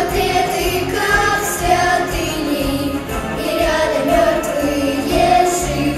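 A group of young girls singing together into microphones, with instrumental accompaniment.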